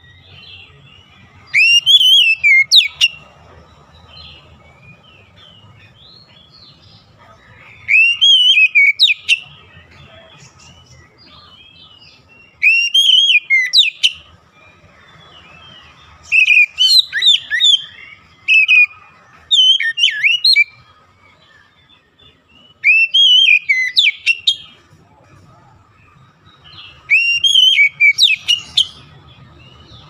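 Oriental magpie-robin (kacer) singing: about seven loud phrases of quick, sweeping whistled notes, each a second or two long, with pauses of a few seconds between them.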